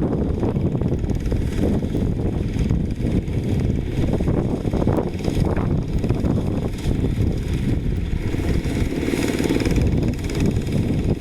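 Quick H-140R light rice harvester's diesel engine running steadily while the machine works.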